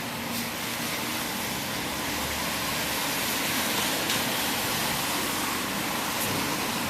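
Steady hiss of road traffic on wet pavement, swelling slightly midway as vehicles pass.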